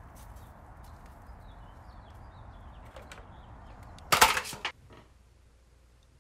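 Aluminium foil takeout tray being opened: a short, loud crinkle of the foil lid about four seconds in, with a smaller crinkle just after, over a low steady background hum.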